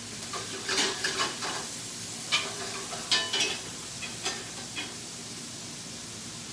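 Shrimp sizzling in a sauté pan, with a utensil scraping and clinking against the pan about half a dozen times as they are stirred and turned.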